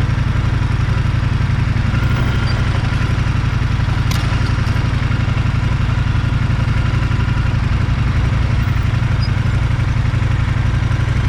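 KTM 1290 Super Adventure R's V-twin engine running steadily at low revs, an even low rumble.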